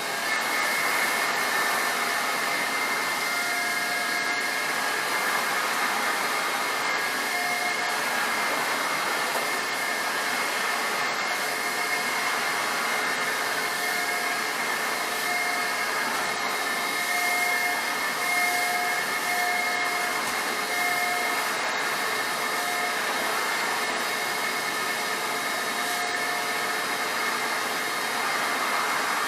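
1956 Electrolux Model E canister vacuum cleaner running at full speed while vacuuming, a steady rushing whine with a high tone held throughout. A fainter lower tone comes and goes every second or so.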